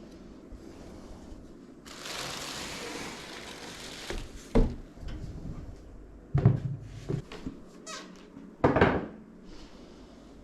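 Computer parts and packaging being handled on a work surface: about two seconds of rustling hiss, then several sharp knocks and clunks.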